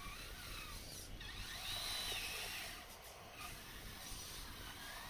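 Small electric drive motors and gearboxes of a radio-controlled model machine whining, the pitch rising and falling as they speed up and slow down.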